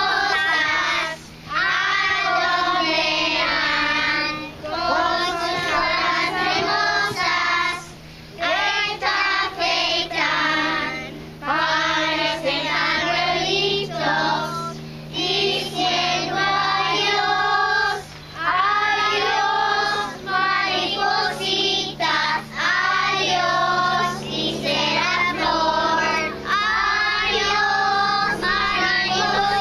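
A group of young children singing a song together, phrase by phrase with short breaks between lines.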